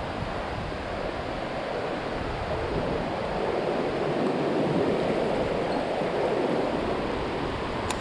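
Mountain stream water rushing steadily, growing a little louder about halfway through.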